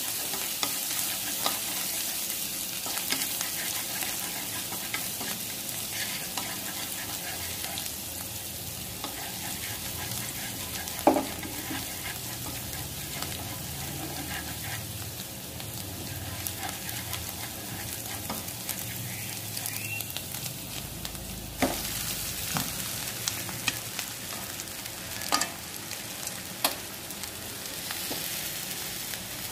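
Ground onion and garlic sizzling in hot oil in a nonstick wok, stirred with wooden chopsticks that click and scrape against the pan now and then. Near the end, egg noodles are tipped into the wok.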